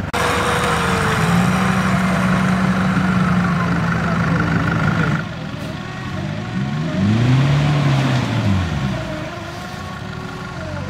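Off-road 4x4's engine running at a steady pitch, then revving up and back down about seven to nine seconds in.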